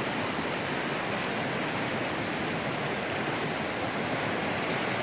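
Fast-flowing creek rushing over riffles: a steady, even roar of moving water.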